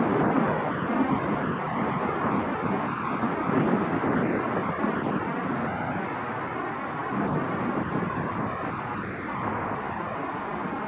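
Union Pacific diesel-electric freight locomotive running steadily as it slowly leads a train of boxcars, with the rumble of the engine and rolling wheels.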